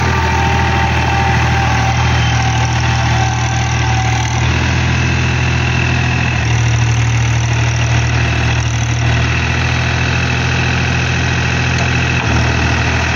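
New Holland 4710 tractor's three-cylinder diesel engine running steadily under load, pulling a rotavator through flooded paddy mud.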